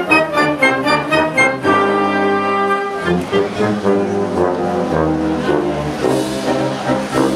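Southern Italian wind band (banda) playing a march: clarinets, saxophones and brass together. Short repeated notes for the first second and a half, then longer held notes.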